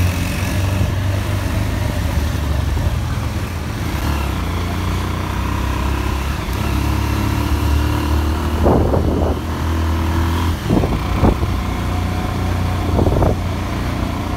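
Motorcycle engine running steadily under way, heard from the bike itself, its low hum easing off after about ten seconds. A few short, loud noises come in the second half.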